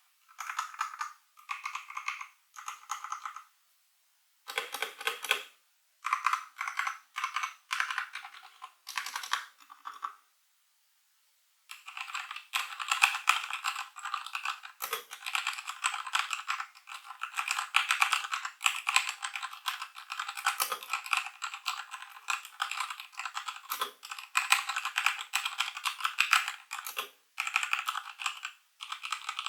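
Typing on a Ziyoulang T60 (CPSTECH T60) 60% mechanical keyboard with linear red switches: short bursts of keystrokes for about ten seconds, a brief pause, then steady fast typing.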